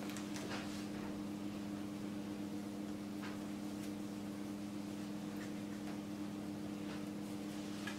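A steady low electrical hum, with a few faint rustles and clicks from craft materials being handled, about half a second in, around three to four seconds in, and near the end.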